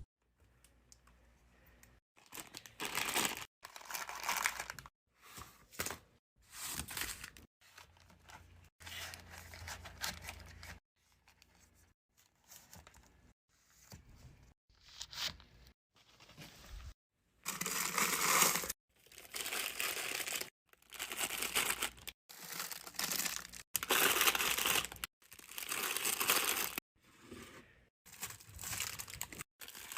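Plastic packaging crinkling and tearing as it is opened and handled, in short bursts with brief silent gaps between them.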